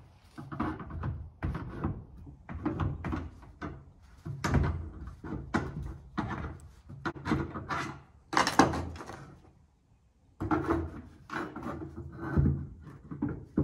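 Screwdriver worked in the trunk lock of a 1949 Chevy Fleetline, giving a quick string of metal knocks and rattles from the lock and trunk lid, with a short pause about ten seconds in. The lock is being pushed down rather than twisted, the way these old Chevy trunk locks open.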